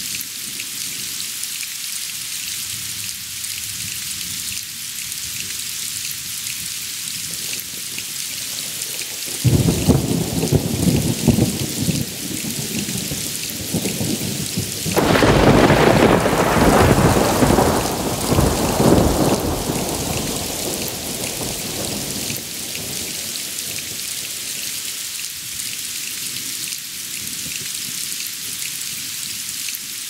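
Steady rain hissing down. About a third of the way in, thunder breaks suddenly and rumbles for a few seconds. A louder thunderclap about halfway through rolls on for several seconds before dying away into the rain.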